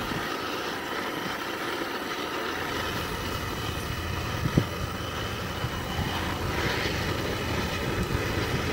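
Outdoor gas wok burner running steadily under a steel wok that is being heated to burn in its seasoning, with one short knock about four and a half seconds in.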